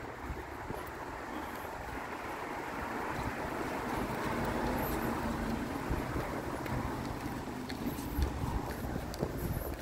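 Street traffic: the noise of a passing vehicle swells to a peak about halfway through and then fades.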